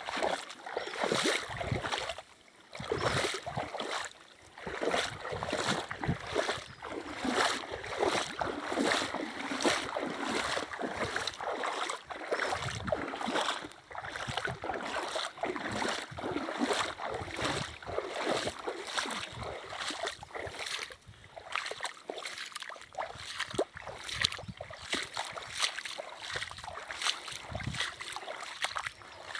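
Water splashing and sloshing again and again at a fairly even pace, over the rush of a running river.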